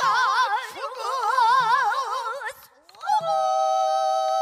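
A woman singing pansori in a high voice with wide, heavy vibrato, while a buk barrel drum is struck a few times underneath. After a short break about two and a half seconds in, she holds one long high note.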